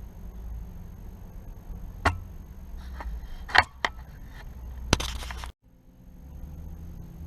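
A few sharp knocks and a short clatter over a steady low hum, stopping abruptly about five and a half seconds in before the hum returns.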